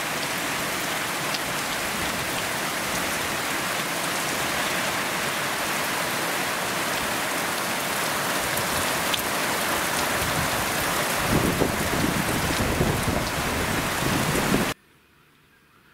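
Heavy rain drumming steadily on a new corrugated iron roof, a dense hiss with no break. About eleven seconds in a low rumble joins it, and the sound cuts off abruptly near the end.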